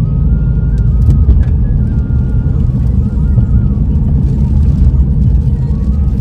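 Steady low rumble of a car's engine and tyres on a wet road, heard inside the cabin while driving, with a few light clicks about a second in.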